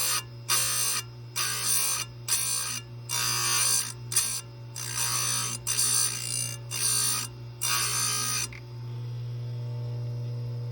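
Chain grinder's wheel square-grinding saw chain cutters in a quick series of short light touches, roughly one or two a second, which stop about eight seconds in. The grinder motor's steady low hum carries on underneath.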